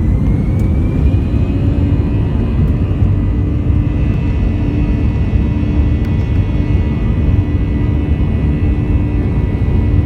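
Airbus A321 jet engines heard from inside the cabin: a loud, steady low rumble with a whine that rises in pitch over the first second or so, then holds steady.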